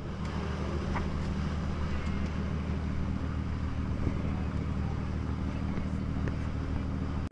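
A dive boat's engine running steadily under way, a low even drone with a hiss over it.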